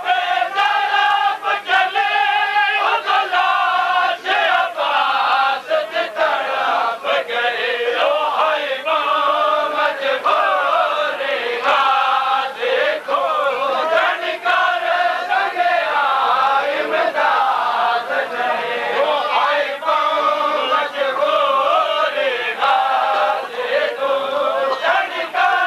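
A crowd of men chanting a Shia mourning lament (noha) together in matam, their voices rising and falling in a repeated refrain. Sharp slaps, likely hands striking chests, cut through here and there.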